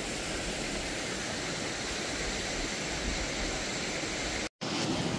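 Steady rushing of creek water running past the rocks, breaking off for an instant near the end.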